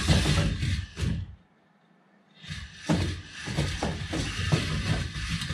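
LEGO Technic rover's electric motors and gears whirring as its wheels knock and scrape over wooden planks. The noise breaks off about a second and a half in and starts again about a second later.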